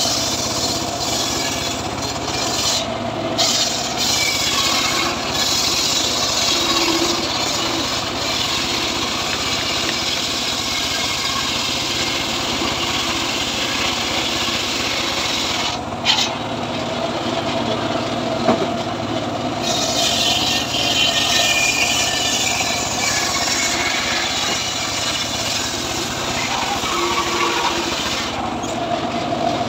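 Homemade circular saw bench ripping a mahogany log lengthwise, the blade cutting steadily through the wood over the machine's running engine. It eases briefly about halfway through, and in the second half a whining tone falls slowly as the cut goes on.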